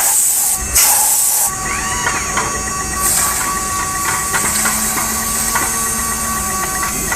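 A 600x900 mm CNC router running, with a steady machine whine and hum and loud bursts of high hissing, the longest from about three seconds in to near the end.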